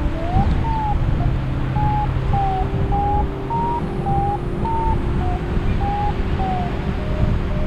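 Paragliding variometer beeping its climb tone, short beeps about two a second whose pitch wavers up and down as the lift varies, over heavy wind rush on the microphone.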